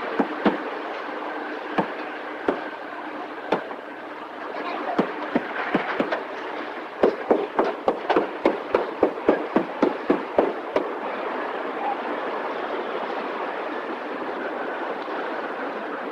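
Car-factory assembly-line noise: a steady mechanical din with scattered sharp knocks, then a quick run of about four knocks a second lasting some four seconds, starting about seven seconds in.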